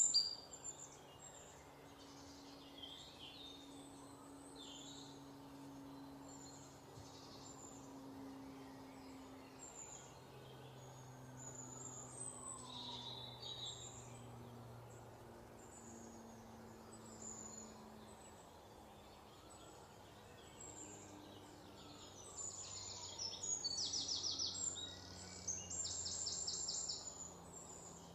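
Small birds chirping and twittering against an outdoor background with a faint low hum. Louder, rapid rattling trills come in about three-quarters of the way through.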